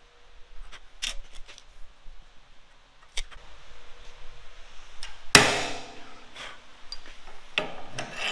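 One sharp metallic strike about five seconds in, ringing on briefly: a center punch marking a hole position in a steel angle clip held in a bench vise. A few light clicks of tool on steel come before it.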